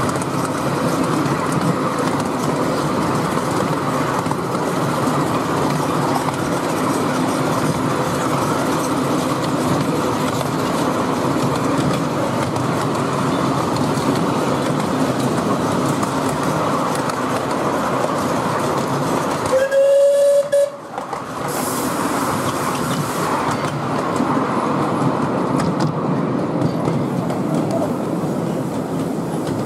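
Steady running of miniature-railway carriages behind a 10¼-inch-gauge steam locomotive modelled on rebuilt Merchant Navy 4-6-2 No. 35004 'Cunard White Star', wheels rolling over the track. About two-thirds of the way through, the locomotive's whistle sounds once, a loud single tone of about a second.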